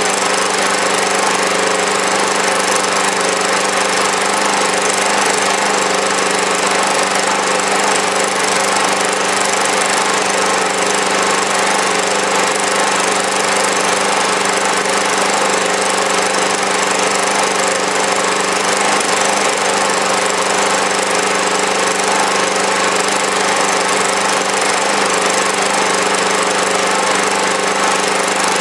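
Small engine running steadily at a fixed set speed, coupled to a generator that carries a steady electrical load of about 350 watts, on fuel alone without HHO gas.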